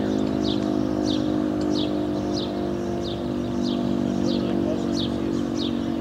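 Sterling M10 dual-tone civil defense siren sounding a loud, steady chord. A short, falling high chirp repeats about every two-thirds of a second over it.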